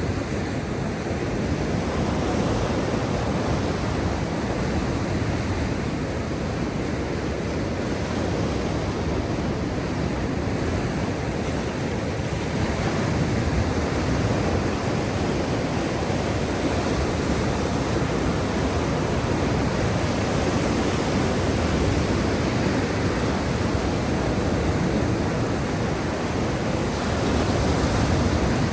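Black Sea surf: a steady, continuous rush of waves, swelling slightly near the end.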